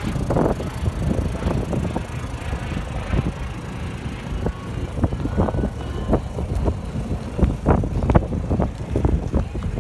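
Wind buffeting the microphone, with irregular footsteps crunching on gravel.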